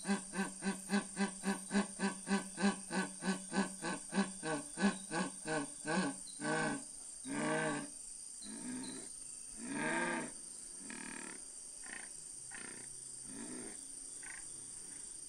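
A wild animal calling from the rainforest: quick pitched calls about three a second that, after about six seconds, slow into longer calls spaced about a second apart, over a steady high hiss.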